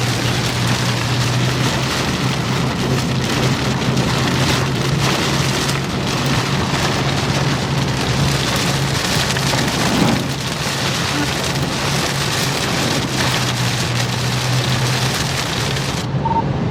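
Heavy rain pelting a moving vehicle's roof and windshield in a thunderstorm, a steady dense hiss over a constant low hum. Near the end the high part of the sound briefly drops out and it goes muffled.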